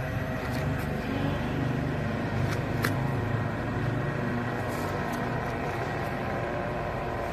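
Radio-controlled model car running on an asphalt track: a steady motor and drivetrain hum with tyre noise, and a few light clicks.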